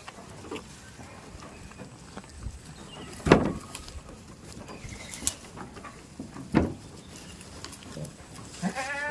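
Two loud thumps about three seconds apart, then a goat bleating near the end with one wavering call.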